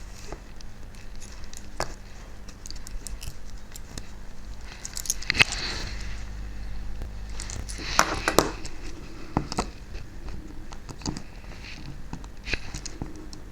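Small clicks and scrapes of a model locomotive's tiny parts being worked on with a small screwdriver, with louder clatters about five and eight seconds in, over a low steady hum.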